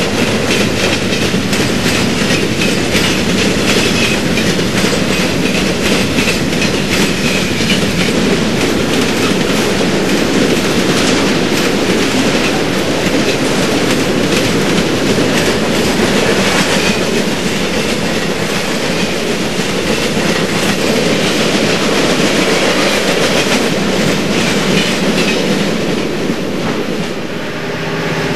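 HO scale model freight cars rolling past on the track, a steady rapid clatter of wheels clicking over the rail joints.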